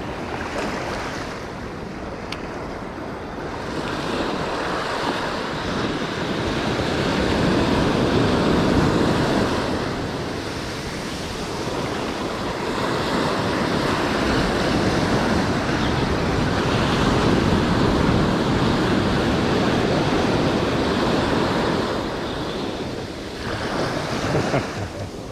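Surf breaking and washing up a sandy beach, swelling louder twice and easing between, with wind rumbling on the microphone.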